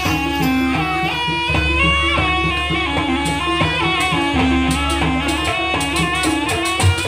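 Jaranan dance accompaniment music: a melody line over drums and sustained low notes.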